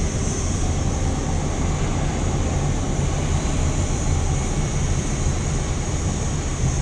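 Steady rumble and hiss of a car driving slowly, heard from inside the cabin: a low engine and road drone with an even high hiss above it.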